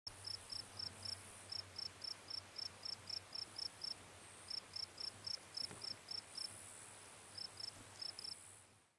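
An insect chirping in short, high, evenly spaced pulses, about four a second, with two brief pauses. Under it a fainter, higher hiss swells and fades. The sound fades out at the end.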